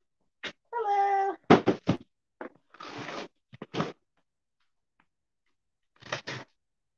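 A cat meows once, a short call about a second in. Around it, a cardboard box knocks and is set down with a sharp thud, then a box cutter scrapes across the packing tape in short strokes.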